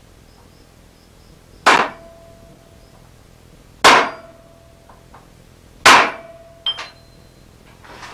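Hammer striking a center punch into a steel die blank three times, about two seconds apart, each blow followed by a short metallic ring. A lighter metal clink follows near the end.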